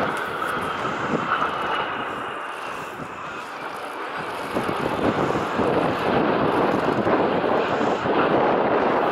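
Jet noise from an F-22 Raptor fighter flying past, an even rushing sound that grows louder about halfway through.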